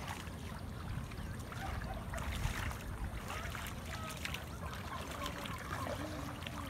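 Shallow floodwater splashing and trickling as a cast net is gathered and hauled in by hand, with many small irregular splashes over a steady low rumble.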